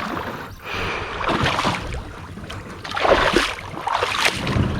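Pond water splashing and sloshing in irregular surges, as from people wading and moving about in shallow water.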